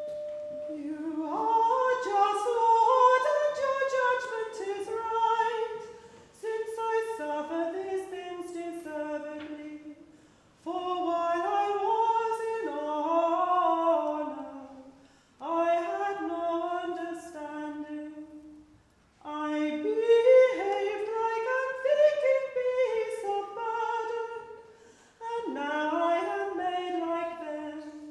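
A woman singing solo and unaccompanied, a slow melodic chant in about six phrases with short pauses for breath between them.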